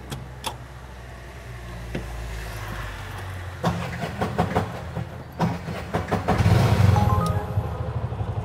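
Auto-rickshaw engine running in heavy road traffic, with scattered clicks. The engine sound grows louder and pulses strongly about six seconds in.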